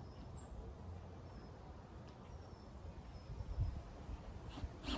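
Quiet outdoor background with a low rumble and a few short, high-pitched bird chirps, about four of them.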